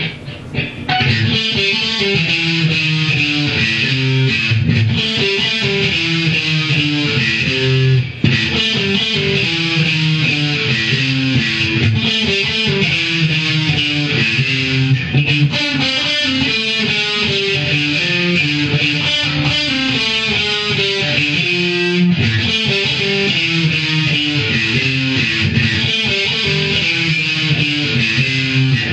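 Fender Mexican-made Stratocaster electric guitar played through distortion: a continuous stream of single notes and riffs, with a brief break about eight seconds in.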